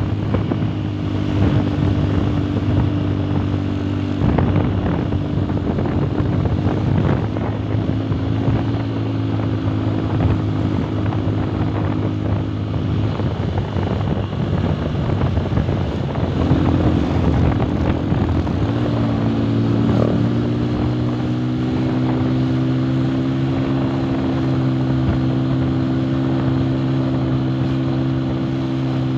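Motorcycle engine running steadily, heard from the rider's seat over rushing wind on the microphone. Its pitch steps and settles a few times as the speed changes: it fades back into the wind for a few seconds around the middle, then rises and holds steady from about two-thirds of the way in.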